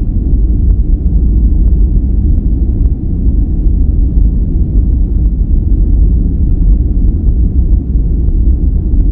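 Steady, unbroken noise track, far heavier in the low end than true white noise, so it sounds like a deep, even rumble rather than a bright hiss.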